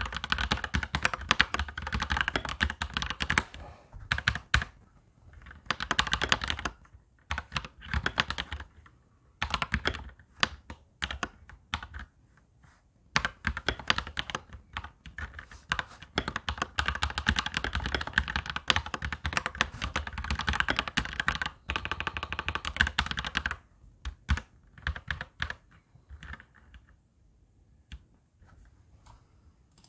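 Touch typing on a Royal Kludge mechanical keyboard: quick runs of key clicks in bursts, with short pauses between them and one long continuous run in the middle. The keystrokes thin out to a few scattered presses and stop near the end.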